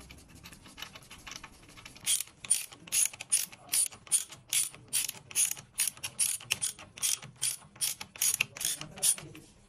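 Ratchet wrench clicking in even strokes, about two to three clicks a second, tightening or turning a fastener during engine assembly. Fainter ticking comes first; the strong clicking starts about two seconds in.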